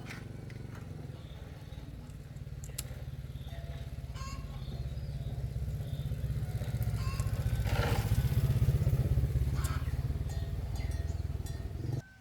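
An engine running with a fast, even beat, growing louder over the first eight seconds or so, then cut off abruptly near the end.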